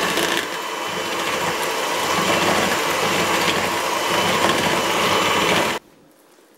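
Electric hand mixer running steadily with its beaters in an egg-and-sugar mixture, mixed only until the sugar dissolves rather than whipped, then switched off abruptly near the end.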